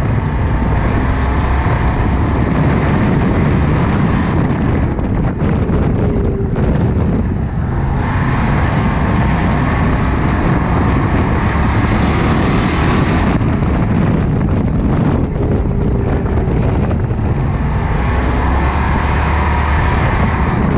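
Ford Crown Victoria race car's V8 engine running hard at race speed, heard from inside the cockpit with wind and road noise. It swells and eases in turn, loudest from about eight to thirteen seconds in.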